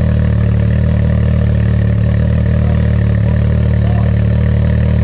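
Can-Am Maverick X3's turbocharged three-cylinder engine idling steadily through a newly fitted EVO Captain's Choice electronic cut-out exhaust.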